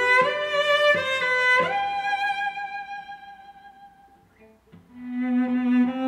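Background music, a slow melody: a long held note fades away around the middle, and after a brief hush a new lower note comes in near the end.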